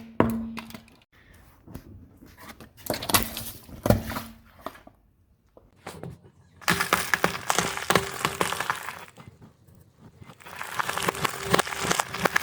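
Objects cracking and crunching as they are crushed under a car, in bursts of many quick cracks. There is a short burst at the start and another around three to four seconds in, then two longer bursts of a few seconds each.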